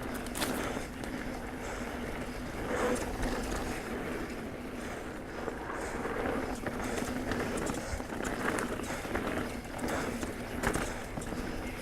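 Pivot Trail 429 full-suspension mountain bike being ridden along a dirt trail: tyres rolling over the ground with a steady hum, and frequent knocks and rattles as the bike goes over bumps.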